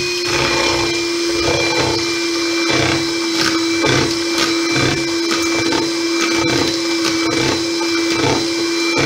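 Electric hand mixer running steadily with a constant whine, its twin beaters whisking eggs and caster sugar in a bowl, with a low pulsing about twice a second as the beaters churn through the mixture.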